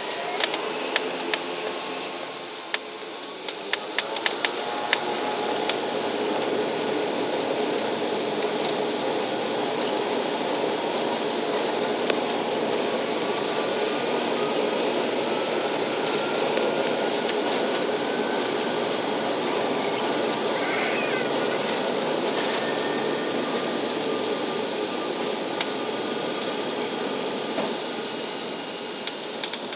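ATR turboprop airliner's engines and propellers heard from inside the cabin, coming up to takeoff power a few seconds in and then a steady loud drone with a propeller hum through the takeoff run and climb. A few light clicks and rattles come in the first few seconds.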